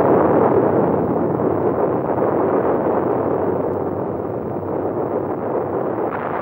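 A steady rushing, rumbling noise with no clear pitch, slowly growing quieter.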